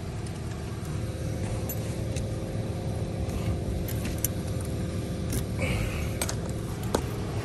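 Steady low mechanical hum inside a car, with a few light clicks and small rattles scattered through it.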